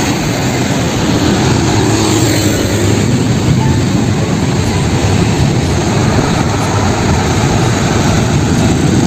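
Loud, steady engine drone: a dense roar with a low hum underneath, holding even throughout.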